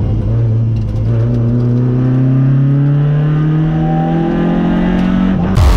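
Citroën rally car's engine heard from inside the cabin, its pitch rising steadily through one long pull under acceleration after a brief dip near the start. Electronic music cuts in abruptly at the very end.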